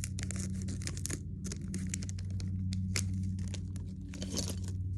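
A Lego minifigure pack being torn open, with irregular crinkling and crackling of the wrapping over a steady low hum.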